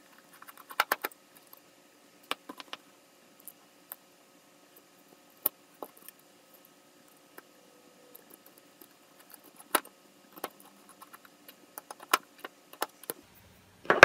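Small irregular clicks and light metallic ticks of a precision Phillips screwdriver working a tiny screw on the metal bracket of an M.2-to-PCIe adapter card, with a few louder clicks as the parts are handled.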